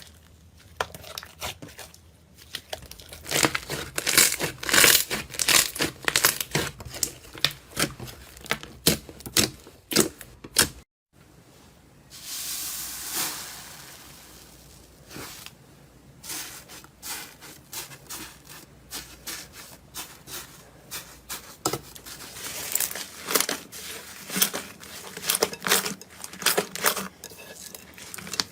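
Slime being squeezed, stretched and pressed by hand, with dense sticky clicks and popping air bubbles. The sound cuts out briefly about a third of the way through, and a softer smooth hiss follows before the popping returns.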